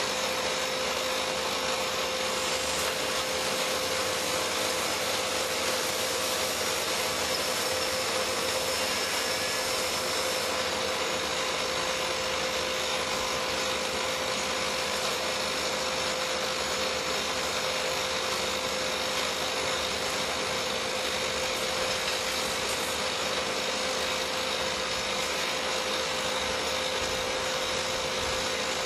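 SOOSAN STD11 hydraulic crawler drill rig running steadily while changing drill rods: a continuous machine noise with a steady whine over it.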